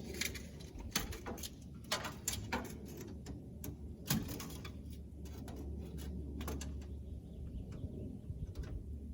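Scattered light clicks and knocks, about nine of them, from handling a tape measure against a truck toolbox while taking its inside width, over a faint steady low hum.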